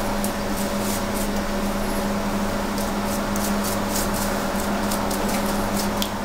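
A basting brush dabbing and spreading barbecue sauce over racks of ribs on a baking tray, making soft, quick clicks, over a steady mechanical hum.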